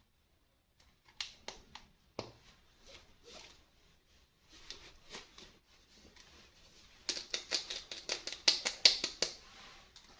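Toy packaging being handled and opened: scattered clicks and short rustles, then about seven seconds in a burst of rapid crinkling and clicking lasting two seconds.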